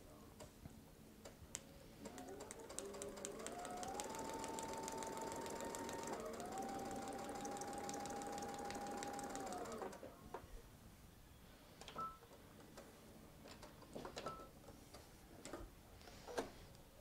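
Electric sewing machine stitching a seam through fabric and foundation paper: the motor speeds up about two seconds in, runs steadily with rapid needle strokes, dips briefly in pitch midway, and stops about ten seconds in. A few faint clicks follow.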